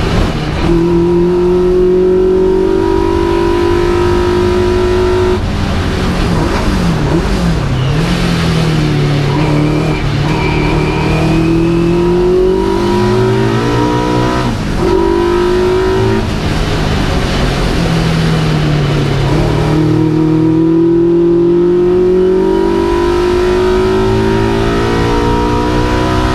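Vauxhall Firenza special saloon race car's engine at racing revs, heard from inside the cabin: the pitch climbs under acceleration, then drops sharply at gear changes and lifts about five seconds in, again around fourteen to sixteen seconds, and falls off before climbing steadily again through the last few seconds.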